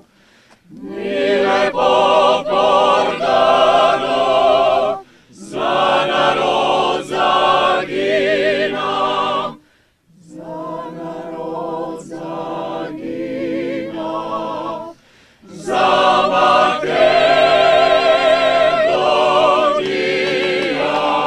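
Mixed choir of men's and women's voices singing a cappella, in phrases with short breaths between them. There is a softer passage in the middle, and the singing grows louder and fuller near the end.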